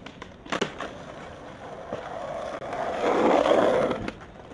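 Skateboard on paved ground: a sharp clack about half a second in, then wheels rolling that grow louder and stop fairly abruptly about four seconds in.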